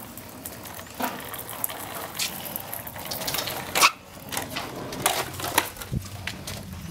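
A small plastic toy skateboard clattering and rolling over concrete as two puppies push it around: scattered irregular clicks and knocks, the loudest about four seconds in.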